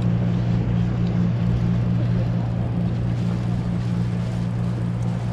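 A fishing boat's engine running steadily: a low, even hum over a constant rush of noise.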